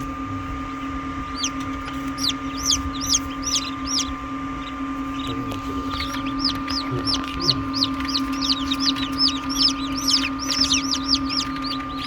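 Newly hatched cheonggye (green-egg chicken) chicks peeping: many short, high, falling cheeps several a second, in a burst early on and a longer, denser run from about halfway, over a steady hum.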